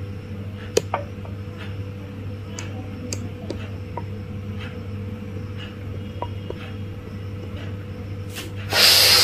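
Low steady hum with a few faint clicks. Near the end comes one loud, hissing breath about half a second long: the in-breath that ends a hold with the lungs emptied, in bahya pranayama.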